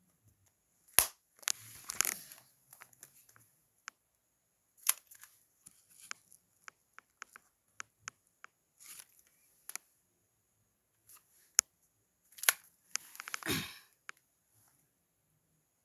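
Plastic mobile phones being handled and set down: scattered sharp clicks, snaps and knocks, with short rustles of handling. The loudest snaps come about a second in and near the end, and a burst of rustling follows each.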